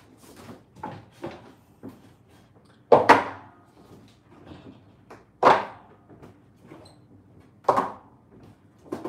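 Silicone soap loaf molds being set down on a wooden worktable: a few light knocks, then three loud thuds about two and a half seconds apart.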